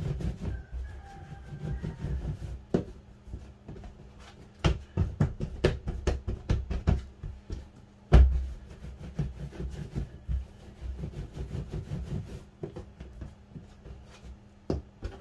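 Hands rolling and shaping bread dough on a metal work bench: repeated soft knocks and slaps of dough and hands against the bench, with a quick run of them about five seconds in and a heavier thud about eight seconds in.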